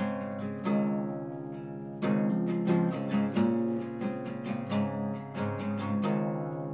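Guitar playing the instrumental introduction of a song: picked and strummed chords that ring on between notes.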